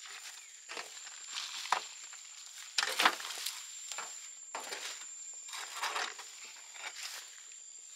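Loose compost sliding and spilling out of a tipped wheelbarrow onto dry grass and straw, a series of rustling, crunching pours with a couple of sharper knocks around two and three seconds in.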